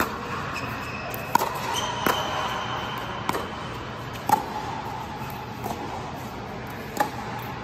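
Pickleball rally: hard paddles striking the hollow plastic ball, about six sharp pops spaced irregularly a second or so apart, some with a short ringing tail.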